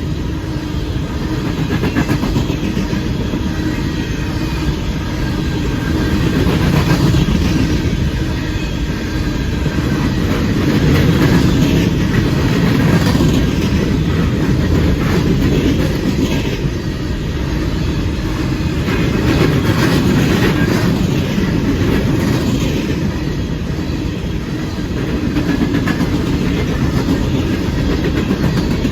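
An empty coal train rolls past close by, a steady rumble from its cars with wheels clicking over the rail joints.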